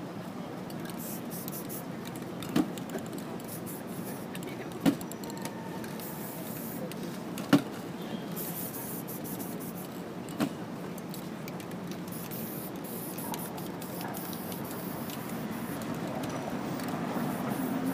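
Aerosol spray-paint cans hissing in short, repeated sprays over steady street background noise. Four sharp knocks come in the first ten seconds or so, about two to three seconds apart, and are the loudest sounds.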